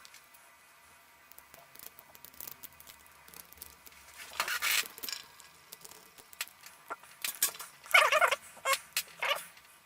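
Lock pick and tension wrench working inside a slightly rusty padlock: scattered light metallic clicks and brief scratchy rattles. Louder bursts come about halfway through and again near the end.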